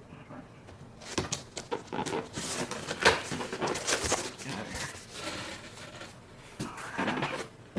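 Cardboard and packing being handled: irregular rustling with scattered knocks and clicks, one sharper knock about three seconds in, as a boxed speaker is unpacked.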